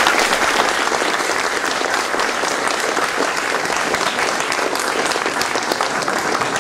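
Large audience applauding steadily, a dense wash of many hands clapping at once.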